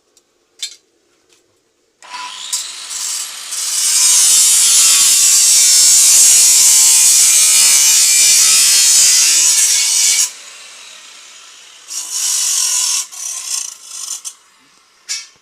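Metal being ground or cut with a power tool, a harsh hiss. It comes in short bursts about two seconds in, runs continuously for about six seconds, and returns in a few short bursts near the end.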